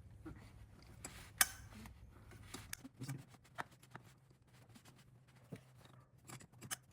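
Scattered clicks and knocks of hand tools being fitted and worked on the oil filter housing cap of a BMW B58 engine, a socket on a universal-joint knuckle. One sharp click about a second and a half in is the loudest.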